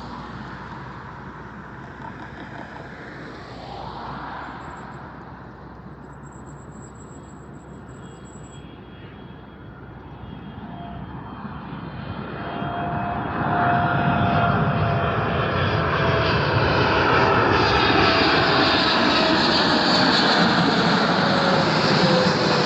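Jet airliner's engines drawing near and passing close. The rushing noise swells to loud about halfway through, with a whine that slowly falls in pitch.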